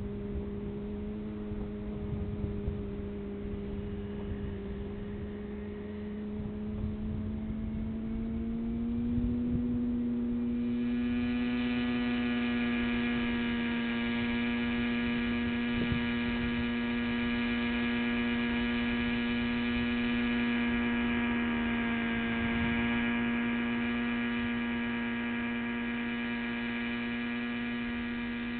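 Raptor radio-controlled model helicopter with a glow-fuel engine, running as a steady high-pitched drone from engine and rotor. About nine seconds in it rises a little in pitch and gets louder and fuller as the helicopter lifts off, then holds steady while it hovers and flies.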